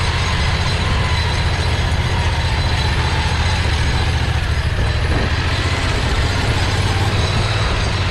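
Predator 670cc V-twin engine running steadily under way, with mechanical rattle from the drivetrain and chassis.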